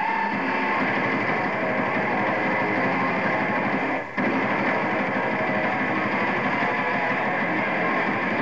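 Melodic death metal band playing live in a dense, steady wall of sound. A short gap cuts through it about four seconds in.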